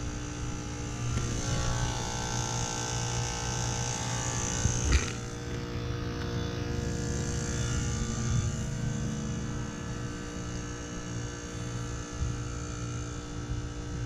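2006 3-ton Heil heat pump outdoor unit running in its defrost cycle: a steady compressor hum with hiss. The hiss builds over the first few seconds, and there is a sharp thump about five seconds in.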